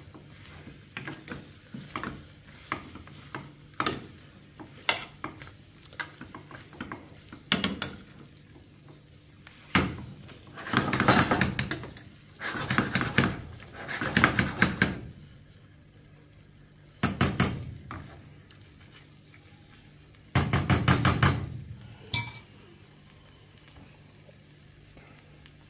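Metal spoon scraping and clinking against a stainless steel frying pan as ackee and chicken back are stirred, in bursts of rapid strokes with single clinks between them, over a faint frying sizzle. The stirring stops near the end.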